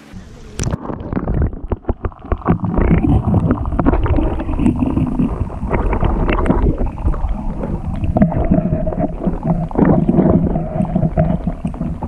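Creek water heard through a submerged camera: a loud, muffled rushing and gurgling, with irregular knocks and bumps from a hand moving a fish about under the water.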